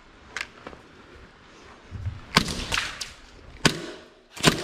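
Airsoft guns firing: a couple of faint snaps early, then about six sharp cracks spaced irregularly over the last two seconds.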